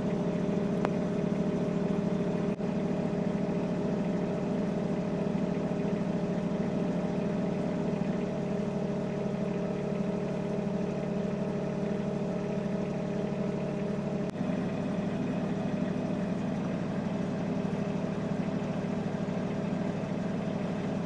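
Vehicle engine idling with a steady hum, heard from inside the cabin; the low part of the hum shifts slightly about fourteen seconds in.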